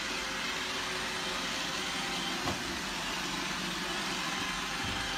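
Robot vacuum running with a steady whirring hum, with one brief knock about halfway through.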